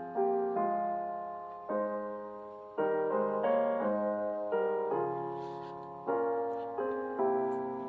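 Slow, gentle piano music: soft chords struck one after another, each left to ring and fade before the next.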